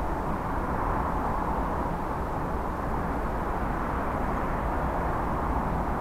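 Steady outdoor background noise: an even rush with an uneven low rumble beneath it, and no distinct events.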